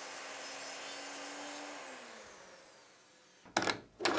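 Evolution mitre saw's motor running free after a cut, then winding down with a falling whine about two seconds in. A quick series of sharp wooden knocks follows near the end.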